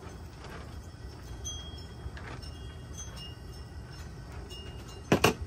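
A steady low kitchen hum with a few faint small pops as blended masala goes back into the pan. About five seconds in come two or three sharp knocks, a utensil striking the pan.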